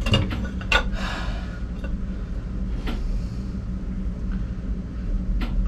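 A few sharp metal knocks and clinks as a wet cylinder liner, freshly pulled with a homemade puller, is lifted and tipped out of a Ford Lehman diesel block, over a steady low hum.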